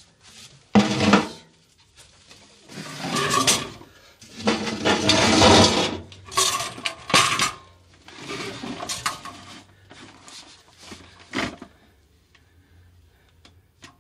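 Hard plastic parts of a cyclone dust collector being handled and set back in place: a bucket, the cyclone separator on its lid and the vacuum cleaner's hose knocked, scraped and clattered together in irregular bursts, loudest in the first half and dying down near the end.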